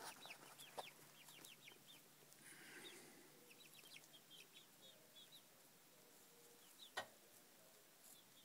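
Chickens, young pullets among them, peeping faintly in short, quick falling chirps in scattered runs. A single sharp click comes about seven seconds in.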